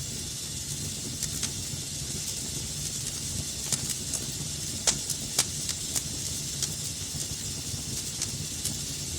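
Fire burning in a fireplace: a steady hiss and low rumble with irregular sharp crackles and pops, the loudest pop about five seconds in.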